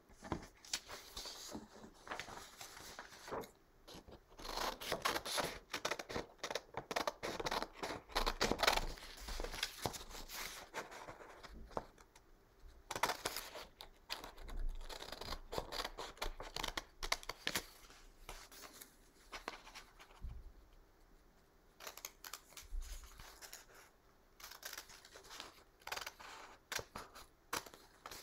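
Scissors snipping through graph paper glued onto a sheet of computer paper, in runs of quick cuts with short pauses between them. The busiest stretch is from about four to ten seconds in.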